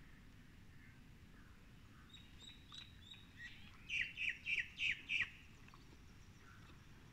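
A bird calling: a few faint high notes, then a quick run of five loud downward-sliding notes about halfway through.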